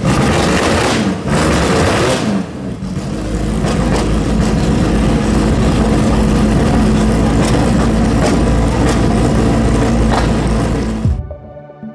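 Abarth open sports-prototype racing car's engine running loudly at a standstill, revved up and down in the first few seconds, then held steady. It cuts off suddenly near the end, giving way to soft music.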